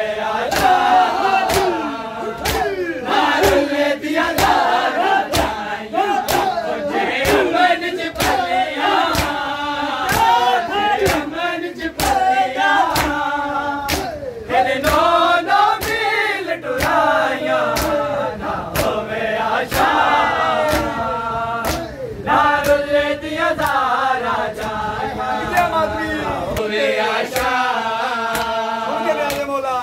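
A group of men chanting a mourning lament (nauha) together in a loud, ragged chorus. Their open-hand chest-beating (matam) gives sharp slaps in a steady beat of about one a second.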